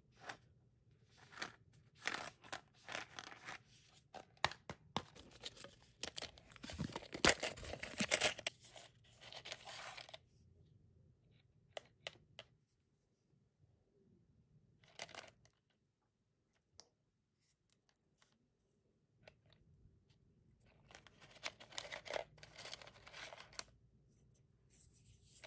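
Foil seal being peeled off a Meiji Yan Yan plastic snack cup, tearing and crinkling in a dense run of bursts over roughly the first ten seconds. Later come a few light clicks and a second stretch of rustling as the cup and its cracker sticks are handled.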